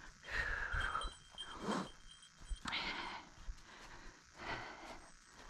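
Footsteps crunching through dry fallen leaves at a walking pace, about one step a second, with a short falling call about half a second in.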